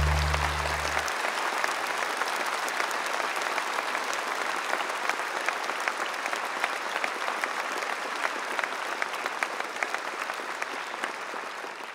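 Audience applauding: a dense patter of many hands clapping that eases slightly toward the end. The low held final chord of the music dies away about a second in.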